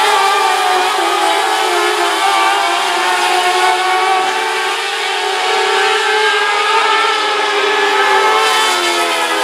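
Several mini late model race car engines running together at racing speed on a dirt oval, their overlapping tones rising and falling as the pack laps the track.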